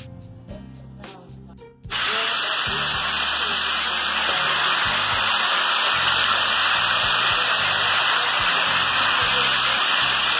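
Background music with a beat, then about two seconds in a sudden cut to a loud, steady hiss of a pot of water at a rolling boil on a stovetop, with the music's low notes still faintly under it.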